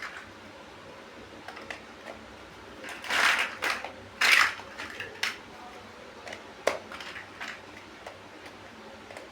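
Plastic building bricks clattering and clicking as they are handled and pressed together. Two louder bursts of rattling come a few seconds in, then a single sharp click.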